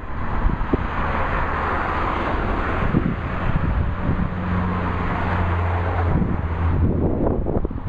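Steady road traffic noise mixed with wind rumbling on the microphone. A vehicle engine's low hum comes up for a couple of seconds around the middle.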